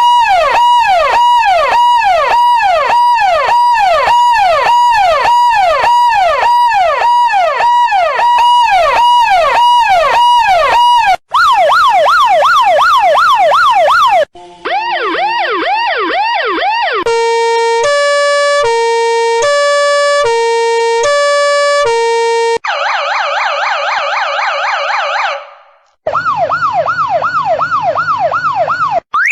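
A run of electronic emergency-vehicle siren tones, cut abruptly from one to the next. First comes a fast, repeating falling sweep for about eleven seconds, then short stretches of quicker sweeps. Near the middle a two-tone high-low siren alternates about twice a second, followed by a rapid warble and fast sweeps again near the end.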